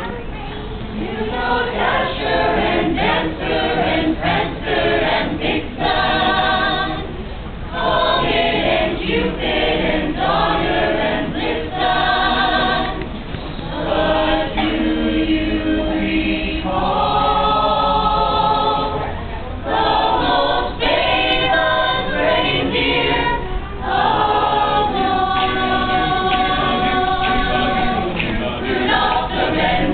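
Mixed choir of young singers, women in front and men behind, singing together in long phrases with held notes and brief breaks between phrases.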